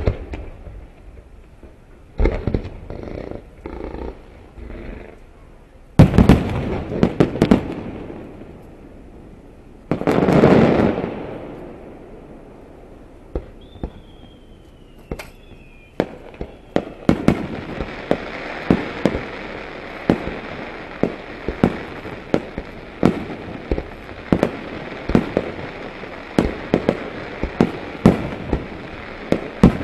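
Aerial fireworks shells bursting overhead: a sharp bang at the start, heavy bursts about 6 and 10 seconds in, the second trailing off in a long rumble, and a falling whistle around 14 seconds. From about 16 seconds a steady hiss carries on under a rapid run of sharp bangs.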